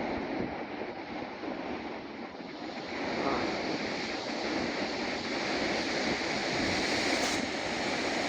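Rough sea surf breaking and washing up the beach, with wind on the microphone; the wash gets louder about three seconds in as the water runs in.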